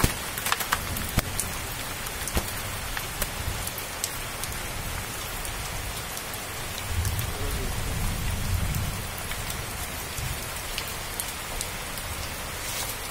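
Steady hiss of falling rain, with scattered sharp ticks and a low rumble for a couple of seconds around the middle.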